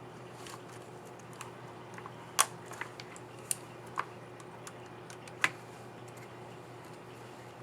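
Scattered small plastic clicks as a laptop keycap and its scissor mechanism are handled and fitted onto an HP 15-BS212WM keyboard, with about five sharper clicks in the middle of the stretch. A faint steady hum sits under them.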